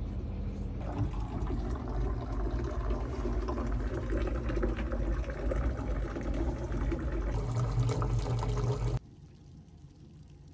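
Water running steadily, as from a tap or pouring, that cuts off suddenly about nine seconds in.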